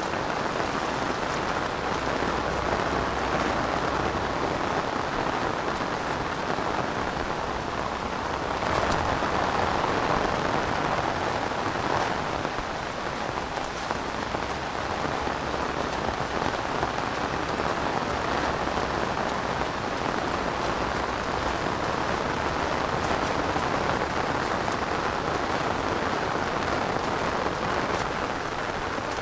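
Heavy rain falling steadily on rice paddies, a dense even hiss that grows slightly heavier about nine seconds in.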